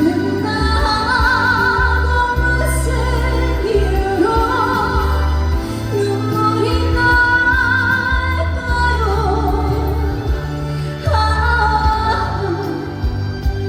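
A woman singing a trot song live with wide vibrato, over backing music with a steady bass line.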